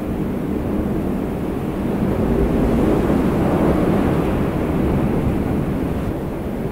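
A steady low rumbling drone, a little louder around the middle.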